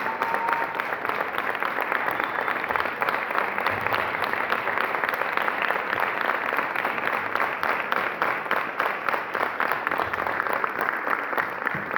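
Concert audience applauding steadily, a dense mass of many hands clapping.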